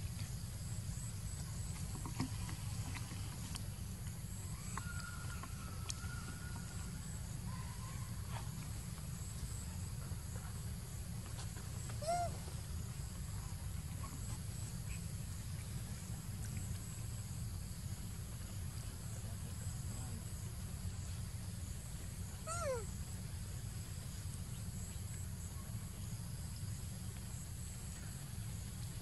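A baby macaque gives two short squeaks that fall in pitch, about ten seconds apart, over a steady low outdoor rumble.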